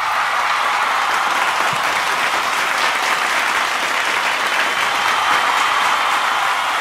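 Audience applauding: dense, steady clapping with no break.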